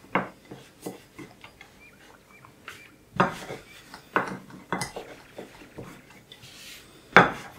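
Rolling pin knocking and clattering on a floured table as dough is rolled out into a flatbread: irregular sharp knocks, the loudest about three seconds in and again near the end.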